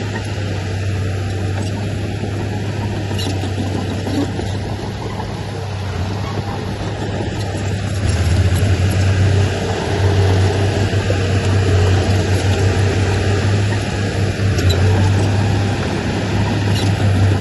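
Heavy earthmoving machinery running, a diesel engine with a steady low drone that grows louder about halfway through.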